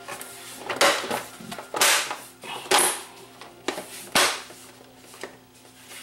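The plastic front bezel of a Craig LCD TV snapping onto the set as it is pressed down around the edges: a series of about five sharp clicks roughly a second apart as its clips catch.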